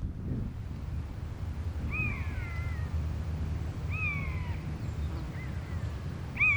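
Common buzzard giving its mewing call: single down-slurred whistled notes, about four in all, spaced a second or two apart, the last one the loudest. A steady low wind rumble on the microphone runs underneath.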